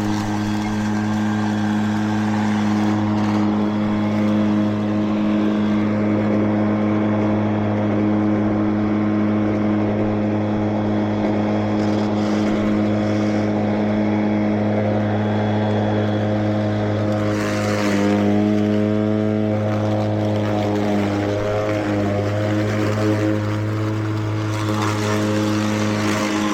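Battery-powered Mowrator 2WD remote-control mower running with its blade spinning: a steady, loud hum whose pitch dips and wavers for a few seconds about two-thirds through.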